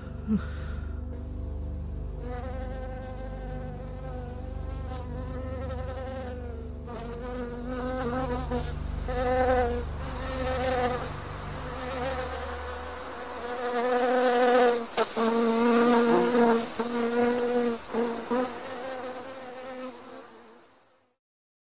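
A fly buzzing, its drone wavering up and down in strength as it moves about, growing louder in the second half and fading out just before the end. A low hum sits underneath until about thirteen seconds in.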